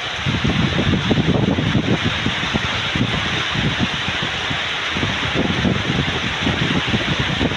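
Heavy storm rain pouring steadily. A moment in, strong wind gusts start buffeting the microphone in irregular low rumbles.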